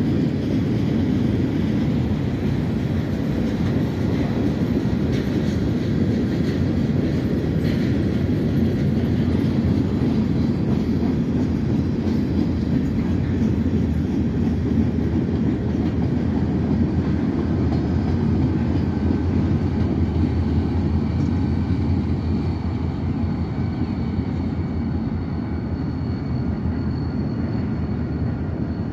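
Freight train cars rolling past, a steady rumble of steel wheels on rail that eases slightly near the end. A faint, thin, high steady tone comes in during the last few seconds.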